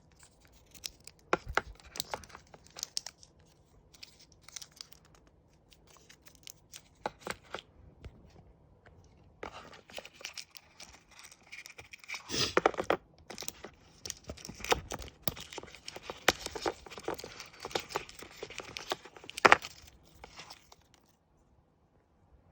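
Handling noises: crinkling and tearing with scattered sharp clicks and taps. Sparse at first, they grow busy about halfway through, then stop a couple of seconds before the end.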